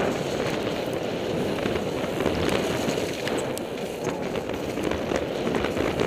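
Mountain bike riding fast down a snowy trail, heard on a body-worn action camera: a steady rush of wind on the microphone and tyre noise, with scattered sharp clicks and rattles from the bike.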